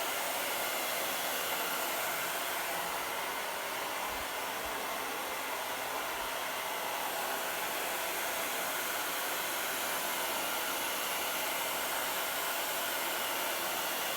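Handheld hair dryer blowing steadily on the hot setting, held against a refrigerator's dried-out door gasket to soften the rubber.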